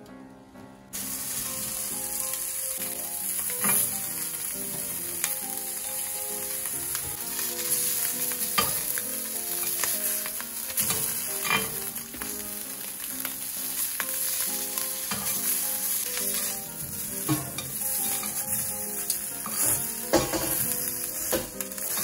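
Strips of ham sizzling steadily in hot oil in a cast-iron pan, starting suddenly about a second in, with occasional light clicks of metal tongs against the pan. Soft background music plays underneath.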